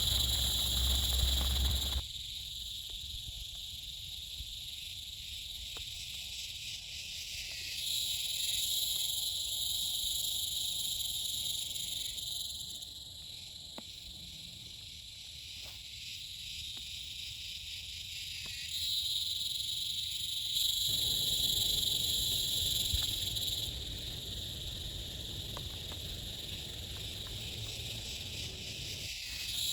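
Night insects chirring in a steady, high-pitched chorus that swells and fades twice, with a low rumble under it for the first two seconds.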